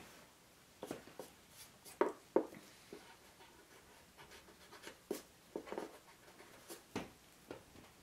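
Pencil sketching on paper-covered board: short, irregular scratching strokes with small pauses between them.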